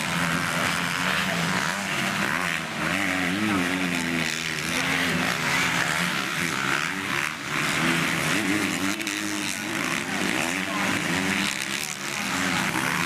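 Motocross bike engines racing on the track, revving up and down again and again as several bikes accelerate and back off.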